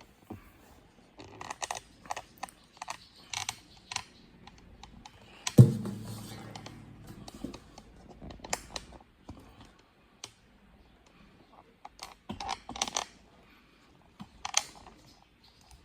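Handling noise from a camera being repositioned: irregular clicks, taps and knocks in small clusters. About five and a half seconds in, a low note sounds sharply and rings out for about two seconds, like open guitar strings being brushed.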